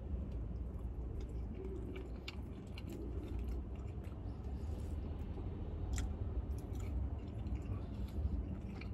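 A person chewing and eating takeout food, with scattered small clicks and ticks from the food container and utensil, over a steady low hum.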